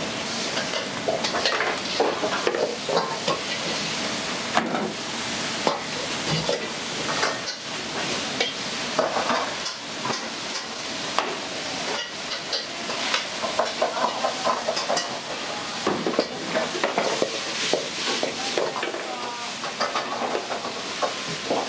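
Food sizzling in a hot wok as it is stir-fried, with the metal ladle scraping and clanking against the wok in quick, irregular strikes.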